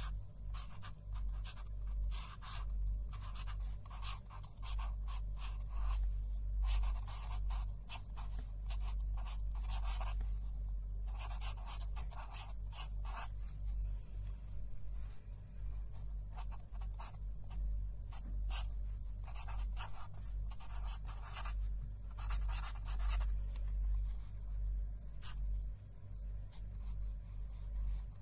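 A pen scratching across paper close to the microphone, writing in quick runs of strokes with short pauses between them, over a steady low hum.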